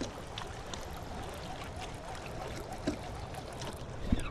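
Small waves lapping and trickling against a kayak hull, with scattered faint ticks and a low thump near the end.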